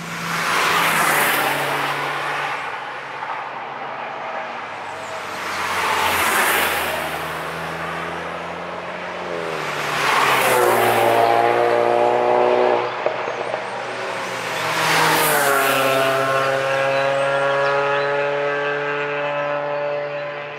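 Cars passing at speed on a race track one after another, about four in all. Each one comes up loud with engine and tyre noise and then fades as the next arrives.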